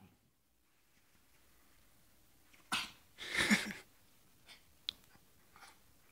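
Basset hound puppy giving two short breathy huffs a little under half a second apart, the second longer, then a single faint click about a second later.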